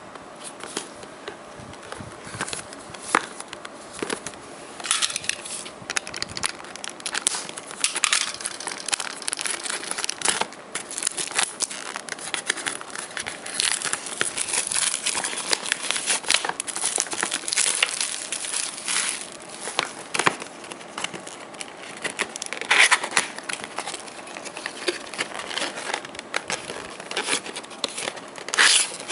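Hands handling and turning a printed cardboard product box: irregular rubbing, scraping and tapping of fingers on cardboard, sparse at first and busier after a few seconds.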